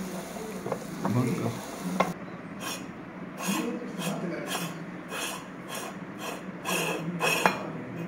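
Meat grinder crushing ice cream cone: a run of crunching, scraping strokes about twice a second, starting about two seconds in, over a steady low hum.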